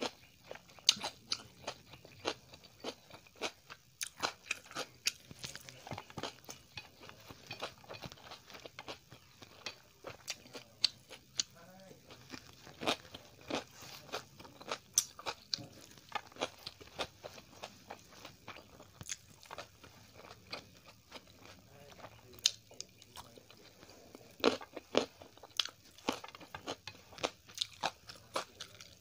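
Close-miked chewing of a mouthful of rice and cooked greens eaten by hand: an irregular run of many short crunches and clicks.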